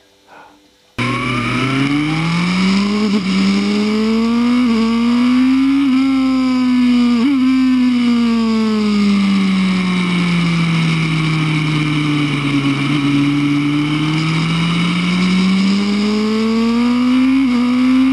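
Racing superbike engine heard onboard at high revs, starting abruptly about a second in. Its pitch climbs with brief breaks at gear changes, sinks slowly through the middle, then rises again near the end.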